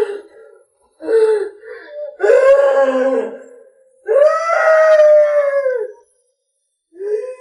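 A woman's voice wailing in drawn-out, pitched cries, four in a row, the longest held about two seconds.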